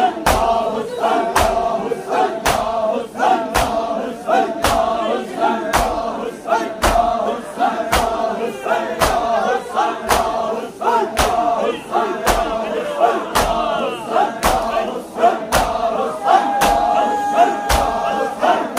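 Crowd of men doing matam, slapping their bare chests in unison about twice a second in a steady, even beat. A mass of men's voices chanting and shouting runs under the slaps.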